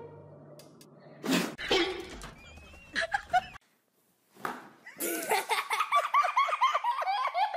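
A person laughing in a long run of quick, pitched bursts, starting about five seconds in.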